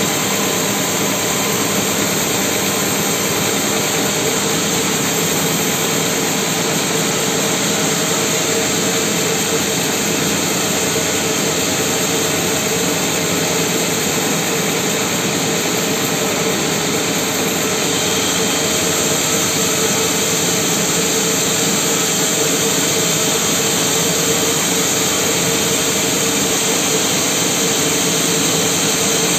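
Sawmill band saw running steadily and cutting through a mahogany log.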